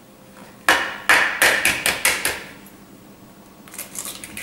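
A hen's egg tapped about seven times in quick succession against the rim of a glass bowl to crack its shell. Near the end come faint crackling clicks as the shell is pulled apart over the bowl.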